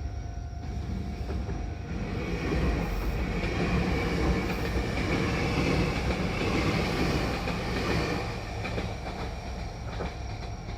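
A train passing over a level crossing: the rumble of its wheels on the rails swells about two seconds in and eases off after about eight seconds, with clacks of the wheels over rail joints near the end. The crossing's warning bell keeps ringing throughout.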